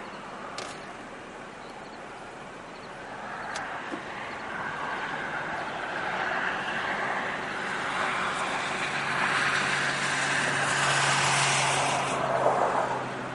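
A motor vehicle passing: tyre and engine noise builds over several seconds and drops away near the end.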